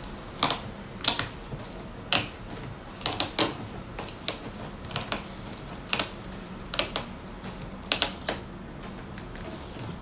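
Packing tape being run off a handheld dispenser and pressed onto a cardboard box: a string of short, sharp rasps and taps, one or two a second, some in quick pairs.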